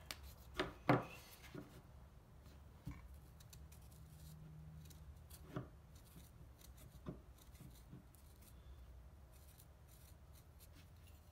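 Faint scratching and rubbing of a marker writing on a cloth shop towel, with a couple of sharp clicks about a second in and a few lighter ticks later.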